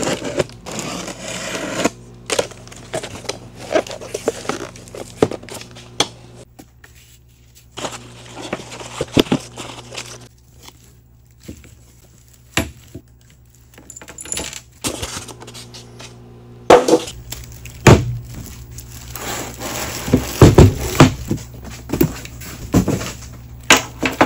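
Unboxing by hand: a utility knife slitting packing tape on a cardboard box, then cardboard flaps, crinkling plastic wrap, and plastic-bagged metal parts knocked and set down on a steel bench top. Irregular rustles and clicks, with sharper knocks in the second half.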